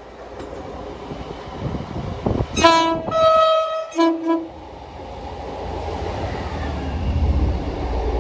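A Class 158 diesel multiple unit sounds its two-tone horn about two and a half seconds in: a short blast, then a longer high note, then a short low note. This is a 'tone' for the trainspotters on the bridge. Its underfloor diesel engines then rumble louder as it runs in beneath.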